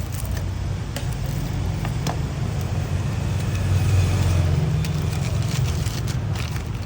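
Steady low drone of motor traffic on a street, swelling briefly near the middle, with a few sharp clicks.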